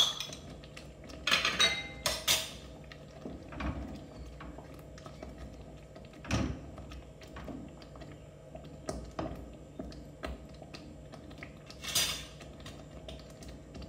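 Kitchen utensils clinking and knocking: sharp metal clinks in the first couple of seconds as a steel spoon taps against a bowl and pan, then occasional duller knocks and scrapes as a wooden spoon stirs thick curry in a stainless steel pan. A faint steady hum runs underneath.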